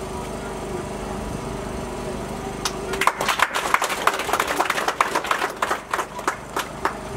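A steady mechanical hum, then, about three seconds in, a few seconds of scattered hand clapping from a group that stops near the end.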